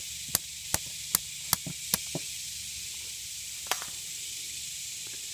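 Small hammer tapping on limestone rock to chip out a pyrite nodule: about six sharp, even taps at roughly two or three a second, then they stop, with one more lone tap a little later.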